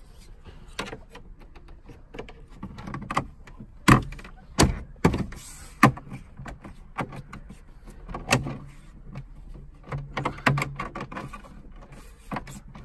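Plastic dashboard trim and stereo fascia being clipped and pushed into place: a string of sharp clicks and knocks, loudest in a cluster about four to six seconds in.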